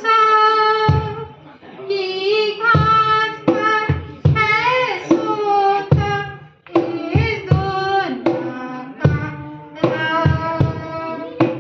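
A woman singing solo into a microphone in short phrases of high, held notes with vibrato.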